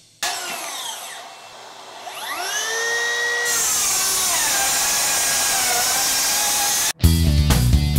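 Makita GSR02 40V XGT 10-1/4" rear-handle brushless circular saw. Its motor whine first falls away as the blade winds down, then spins back up and settles into a steady, loud rip through stacked OSB subfloor, the whine sagging slightly under load. The saw sound cuts off abruptly near the end and music follows.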